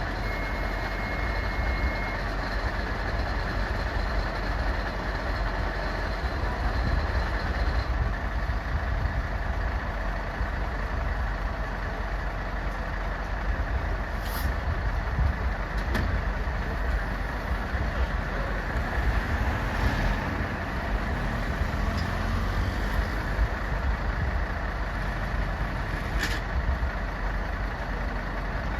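A heavy vehicle's engine idling steadily, with a few short sharp clicks over it in the second half.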